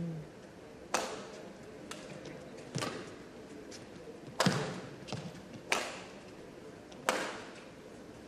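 Badminton rackets striking a shuttlecock in a long doubles rally: about six crisp, sharp hits, one every second or so, each with a short echo.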